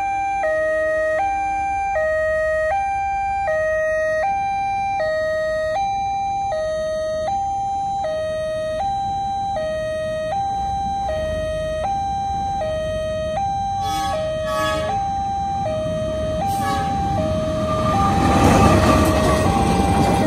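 Railway level-crossing warning alarm from the horn speaker on the crossbuck: an electronic two-tone signal alternating high and low about every two thirds of a second, warning that a train is coming. In the last few seconds the rumble of a passenger train crossing builds up and becomes the loudest sound.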